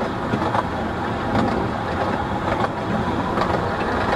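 Narrow-gauge train running: a steady rumble with irregular light clanks.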